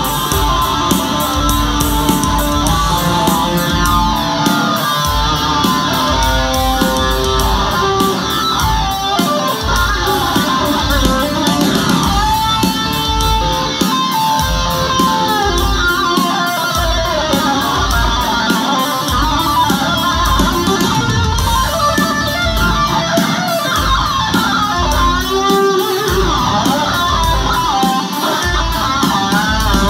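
Rock band playing live at full volume: distorted electric guitars over bass guitar and a steady drum beat.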